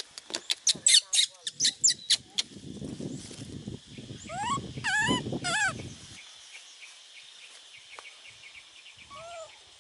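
Animal calls: a quick run of sharp, falling chirps in the first couple of seconds, then several rising, whistle-like calls over a low rustling about halfway through. Two soft rising-and-falling calls come near the end.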